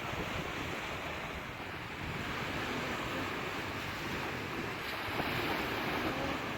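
Sea waves washing onto the shore in a steady surf, swelling a little about two seconds in and again near five seconds.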